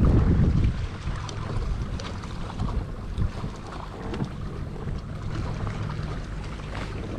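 Wind buffeting the microphone on a kayak, loudest in a gust in the first second, with water splashing and small knocks against the hull.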